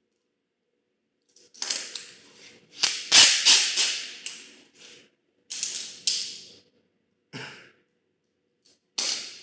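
Utility knife blade scraping at the edge of a TV LCD panel's glass, prying up the polarizer film: a run of short rasping strokes for a few seconds, then a couple of shorter ones, and one more at the very end.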